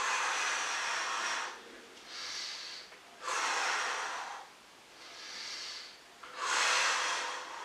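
A man breathing hard and in time with slow ab crunches: three long, loud breaths out about three seconds apart, with a shorter, quieter breath in between each.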